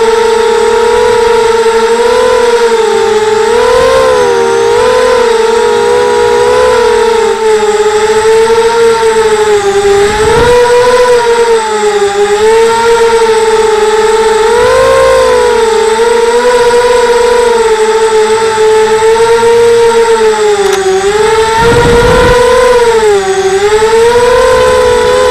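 Mini FPV quadcopter's electric motors and propellers whining steadily, the pitch rising and dipping as the throttle changes. Two brief low rumbles, about ten seconds in and again near the end.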